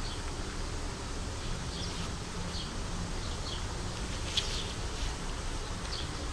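Outdoor background noise: a steady low rumble and faint hum, with a few short, high chirps scattered through it and a single sharp click about two-thirds of the way in.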